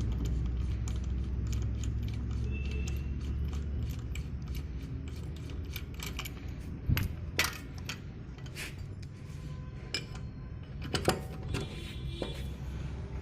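Rattling and clicking from the front of a moving vehicle over a low running rumble, with irregular ticks and a few louder knocks: the noise the owner says mostly comes from the front of the vehicle.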